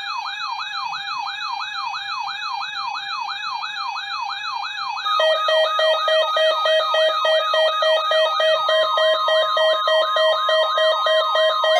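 Electronic siren yelping in quick repeated falling sweeps, about two and a half a second. About five seconds in a steady alarm tone joins it and the sound grows louder, and a second steady tone comes in later.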